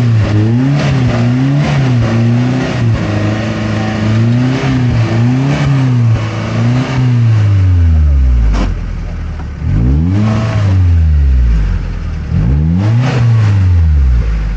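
An off-road 4x4's engine revved up and down over and over, about once a second. Near the middle there is a longer drop to low revs, then the revs climb again in a few swells.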